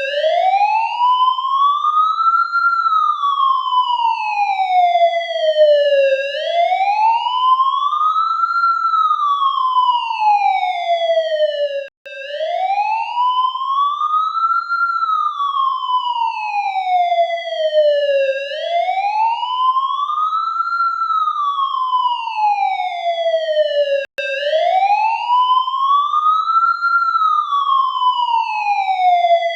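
US ambulance siren in its slow wail, the pitch rising for about three seconds and falling for about three, over and over. It cuts out for a moment twice, about twelve seconds apart.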